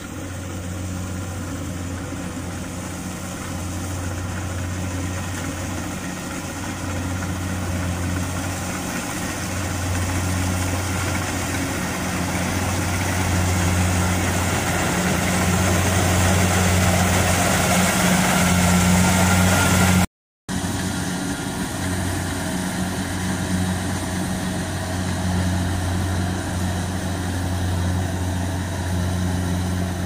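Kubota DC-70 Plus combine harvester's diesel engine running steadily as the machine cuts rice, growing louder as it comes closer. The sound drops out for a split second about two-thirds of the way through, then carries on a little quieter.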